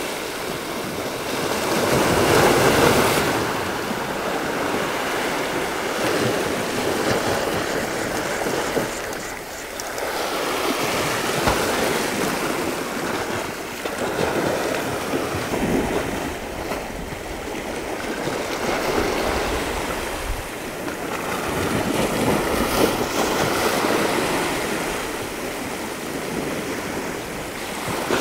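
Sea waves washing against a rocky shore, swelling and falling back every few seconds.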